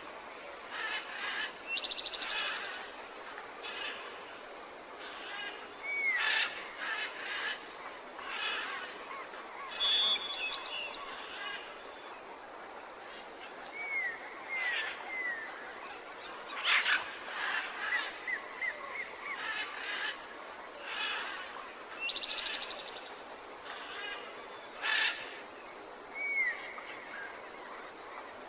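Tropical forest ambience: many birds calling and chirping at once, with short hooked whistles and a rapid trill heard twice, over a thin steady high-pitched tone.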